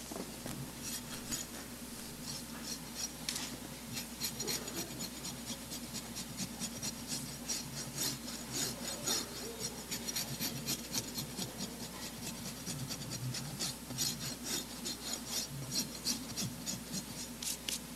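Farrier's rasp filing a horse's hoof in many quick back-and-forth strokes, cleaning up the hoof around a freshly cured adhesive quarter-crack patch.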